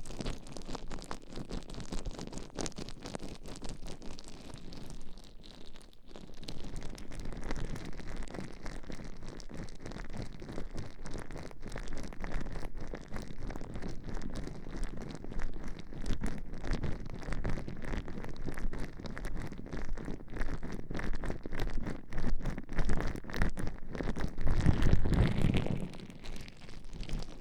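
Gloved hands rubbing and kneading gel and baby oil over a binaural microphone's ears: continuous wet, squishy rubbing with fine crackles, swelling louder and deeper for a couple of seconds near the end.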